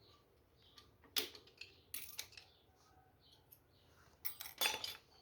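Metal hand tools clinking and clicking against the clutch-side engine parts of a Honda CG 125 Titan during disassembly: a few separate sharp metallic clicks, with a louder cluster near the end.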